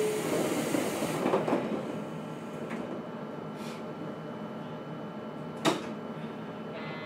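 Passenger doors of a JR Kyushu 811 series electric train sliding shut with a rush of air and a thud about a second and a half in. A short air hiss follows about three and a half seconds in, and a sharp clunk comes near the end.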